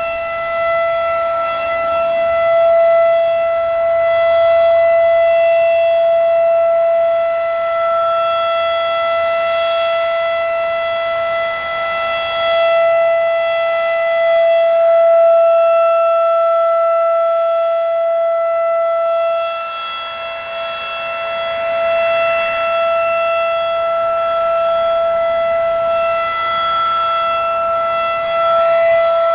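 Federal Signal Thunderbeam RSH-10 outdoor warning siren sounding the full alert signal: one steady, unwavering tone with several overtones, its loudness slowly swelling and dipping.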